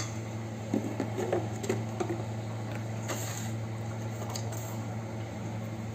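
Steady low hum, with faint clinks and scrapes of a metal spoon stirring batter in a steel bowl.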